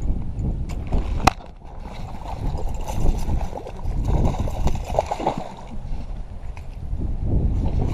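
Water sloshing and gurgling over a low, uneven rumble, with one sharp click a little over a second in.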